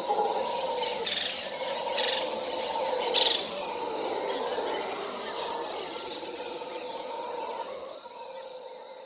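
Steady chorus of insects, several shrill high tones held without a break, growing fainter near the end.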